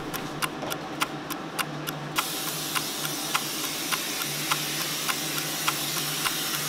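Closed-cell spray foam hissing out of a Froth-Pak spray gun, the full hiss starting about two seconds in. Under it runs a steady ticking of about three to four ticks a second.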